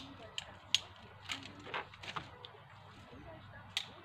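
Pole pruner snipping apple tree branches: a run of about eight sharp clicks and snaps, most in the first two and a half seconds and one more near the end, a couple of them drawn out like a twig giving way.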